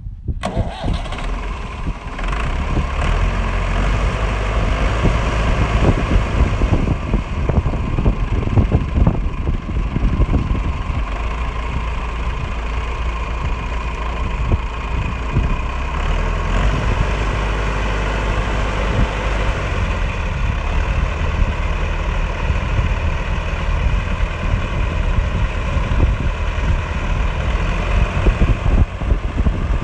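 Massey Ferguson 65 Mk II tractor's four-cylinder Perkins diesel engine catches about half a second in and then runs steadily at idle.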